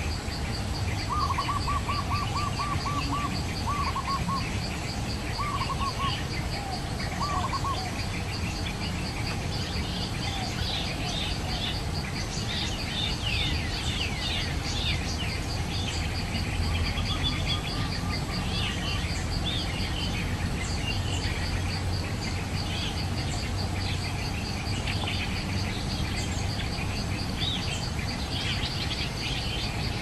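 Forest birdsong: a bird gives several quick runs of low, evenly spaced notes in the first eight seconds, then many small birds chirp and twitter. An insect keeps up a steady fast pulsing trill throughout.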